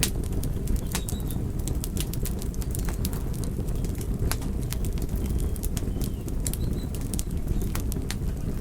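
Wood fire in a fireplace burning with a steady low rumble, and dry crackles and sharp pops from the logs coming irregularly several times a second.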